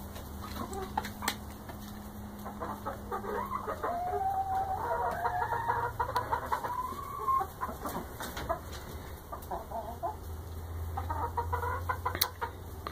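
Mixed backyard flock of laying hens clucking and calling, with a run of longer, sliding calls in the middle; the owner finds the hens annoyed at having him sit in their coop.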